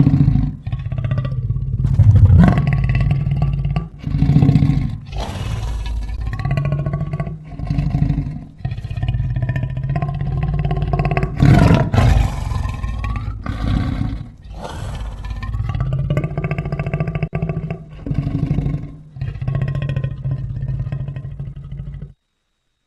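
Sound-effect growls and roars of a big cat, made to stand for a cave leopard: a run of rumbling growls a few seconds long each, broken by short pauses. The sound cuts off suddenly near the end.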